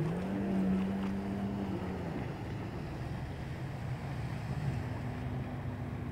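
Watercraft motor whose pitch rises, holds for about two seconds, then drops as it eases off, over steady wind and water noise.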